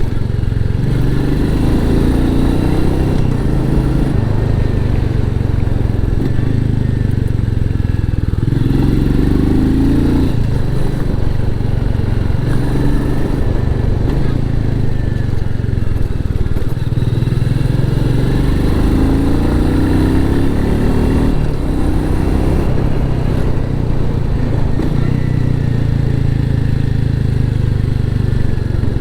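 Royal Enfield Meteor 350's single-cylinder engine running through its stock exhaust under way, with several rising pulls as the bike accelerates.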